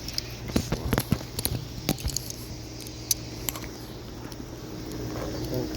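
Light clicks and rattles of hard parts being handled, most of them in the first two seconds and one more a little after three seconds, over a steady low hum.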